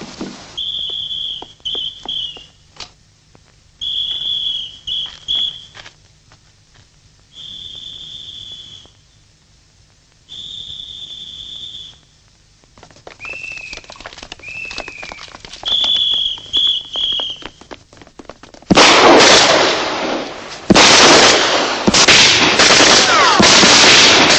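A series of high, steady whistles, several short ones and two longer ones, with the pitch dropping slightly at the end of each. About three-quarters of the way in, heavy gunfire breaks out, rapid and dense, with one brief pause.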